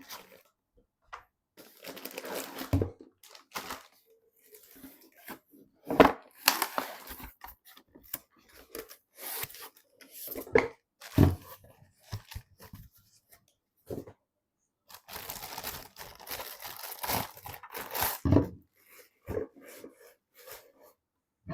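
Hands handling PC parts and packaging: irregular rustling and scratchy, tearing-like noises with a few knocks, the loudest about six seconds in.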